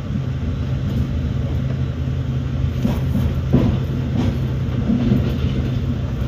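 Passenger train running at speed, heard from inside the carriage: a steady low rumble of wheels on the track, with a few knocks from the wheels over rail joints about halfway through.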